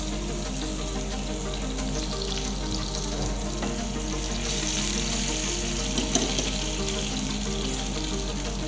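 Chopped shallots sizzling and bubbling in hot oil in a frying pan, a steady hiss, with background music playing along.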